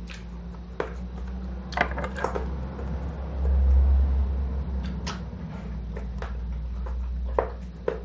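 Scattered small clicks and taps of a knife cutting into a guava and of fruit being handled, over a steady low hum that swells about three and a half seconds in.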